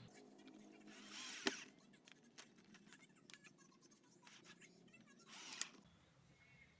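Faint workshop tool sounds: two short bursts of noise, about a second in and again near the end, each ending in a sharp click, with scattered light taps between.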